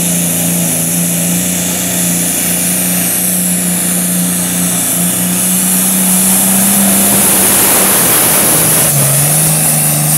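Turbocharged diesel pulling tractor working at full power as it drags the weight-transfer sled down the track, its engine holding a steady high note with a high whine on top. Near the end the revs drop and the engine note falls.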